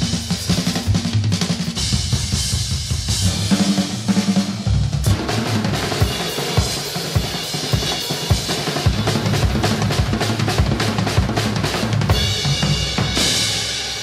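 Drum kit played hard in a fast, driving pattern of bass drum and snare hits with rimshots, with a cymbal wash swelling near the end.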